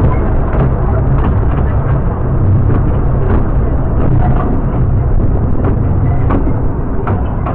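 Narrow-gauge train in motion, heard from inside a carriage: a loud, steady low running noise of wheels on track, with irregular clicks and knocks throughout.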